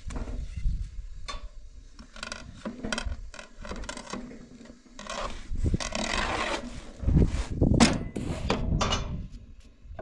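Thin flatbread being worked on a domed metal saj griddle with a long wooden stick: irregular wooden taps and knocks, scraping, and rustling of the thin dough sheets. A longer rustle comes about five seconds in, and the loudest knocks follow around seven to nine seconds in.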